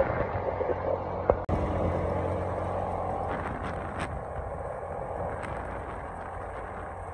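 Side-by-side UTV engine running steadily as it drives over rough dirt ground, with a few short sharp knocks and rattles. The sound drops out for a moment about a second and a half in.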